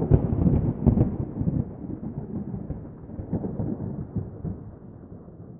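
A deep rolling rumble like thunder, crackling at first and slowly fading away.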